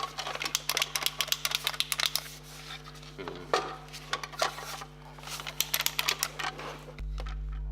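Irregular clicks, taps and rattles of a hard-plastic portable air compressor and its power cord being handled, over a steady electrical hum. Near the end the clicking stops and the low hum gets louder.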